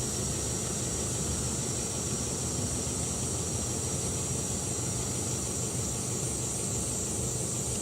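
Mercedes-Benz Actros logging truck's diesel engine running steadily, a low even drone, under a constant high hiss.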